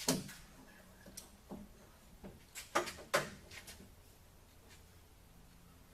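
A handful of sharp clicks and clunks, loudest at the start and as a close pair about three seconds in, from a pickup truck's hood being shifted and set on its hinges while it is aligned.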